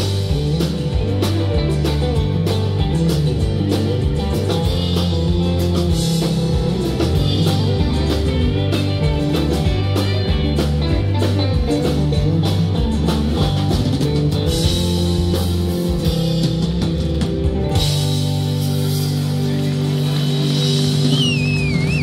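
Live rock band playing an instrumental passage on electric guitars, bass guitar and drum kit with a steady beat. About sixteen seconds in the beat stops and the band holds a sustained chord, with a high sliding tone near the end.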